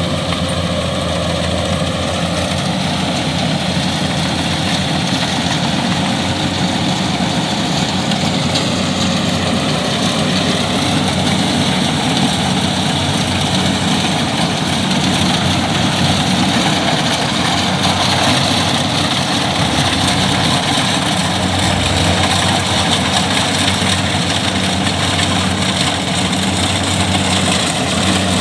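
Kubota rice combine harvester's diesel engine and threshing machinery running steadily while it cuts and threshes rice, with slight shifts in engine pitch a couple of times.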